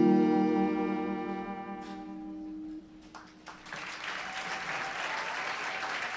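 The last notes of a live acoustic song played on acoustic guitar ring out and fade away. From about three and a half seconds in, the audience applauds.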